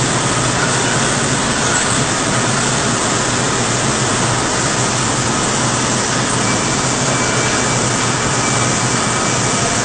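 Loud, steady machine noise with no letup, carrying a faint high whine; a second, higher whine joins about two-thirds of the way through.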